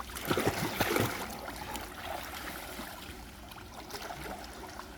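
Mountain stream flowing, with a burst of splashing through the first second or so before it settles to a steady rush of water.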